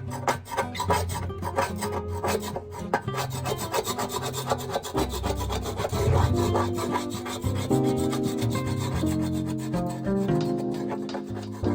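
Coarse sandpaper rubbing over the wooden shelves of an old cabinet in quick, repeated strokes. Plucked-string background music grows louder in the second half.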